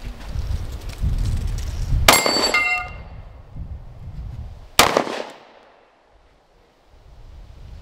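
Two 9mm pistol shots from a Canik Mete MC9, about three seconds apart, fired at a Texas Star steel target. The first is followed by the ringing clang of a steel plate being hit.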